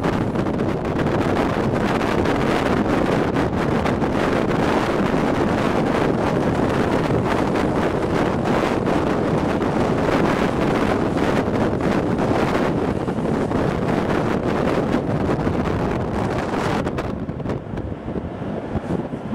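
Wind buffeting a microphone held out of an open window of a moving train, over the steady running noise of the train on the track. The rush eases somewhat near the end.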